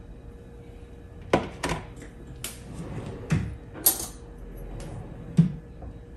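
Kitchen utensils and dishes being handled on a counter: about six sharp clinks and knocks at uneven intervals, the loudest about a second in and another near the end.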